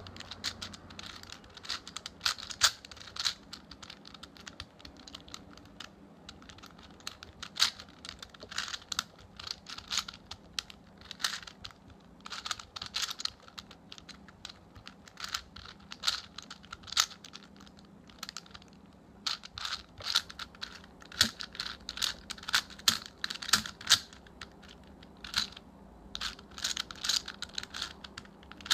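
Plastic layers of a 4x4 Rubik's Cube being turned by hand: sharp clicks and clacks in quick, irregular flurries with short pauses between.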